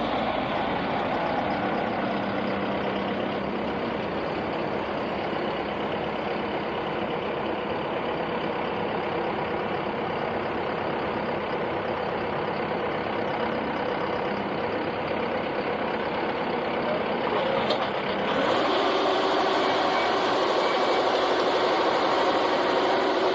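A Fieldking mini combine harvester's engine and machinery running steadily. About 18 seconds in there is a sharp click, after which the running sound changes to a steadier hum with a clear held note.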